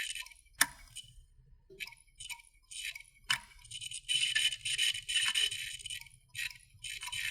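Failing computer hard drive clicking and chattering: two sharp clicks and irregular bursts of high-pitched chatter from the seeking heads, over a faint low hum. This clicking is the sign of a dying drive.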